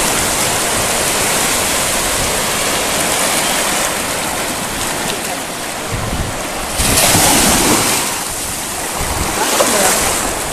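Small sea waves washing onto a sandy beach, a steady hiss of surf that swells louder twice in the second half as waves break.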